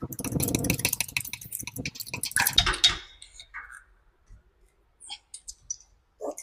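Crimping tool clamping an aluminium lug onto a cable end: a dense run of clicks and rattles for about three seconds, then a few scattered clicks.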